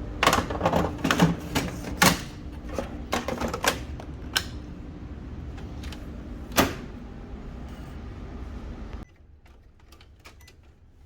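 A rapid clatter of clicks and knocks over a steady low hum, thinning to single clicks, with the hum cutting off suddenly about nine seconds in.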